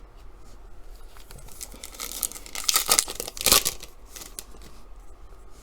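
Wrapper of a trading card pack being torn open: a crinkling, tearing rustle that starts about two seconds in and lasts under two seconds, loudest near its end.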